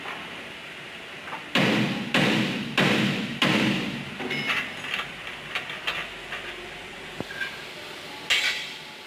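Punch machine striking: four hard knocks in a row about half a second apart, then lighter clicks and knocks, and one more hard knock near the end.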